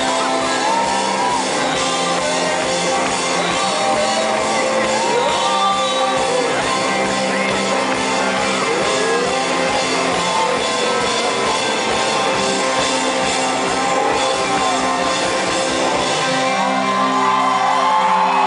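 Loud live rock band playing with a vocalist singing and fans shouting and singing along close by, picked up in the thick of the crowd. The drums and bass drop out about sixteen seconds in, leaving held chords and voices.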